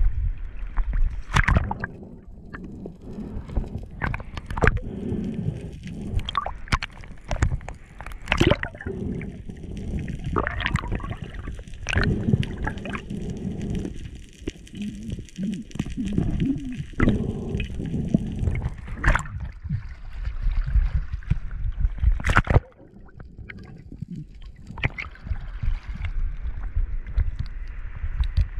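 Seawater sloshing and gurgling around a waterproof camera housing as it rides the surface swell and dips underwater, with scattered sharp knocks and splashes.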